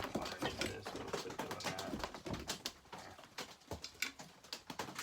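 Irregular light clicks and knocks of small metal parts and hand tools being handled on a workbench.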